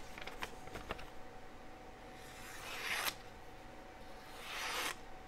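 Two short rasping noises off to one side, the first about two seconds in and the second near the end, each building up and then stopping abruptly, over a faint steady hum.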